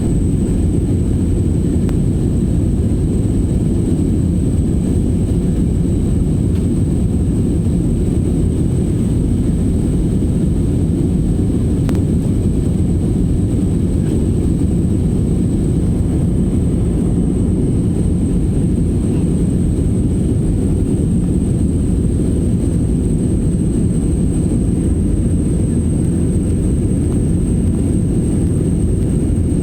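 Steady drone of an airliner cabin in flight: deep, even jet engine and airflow noise, with a thin steady high whine above it.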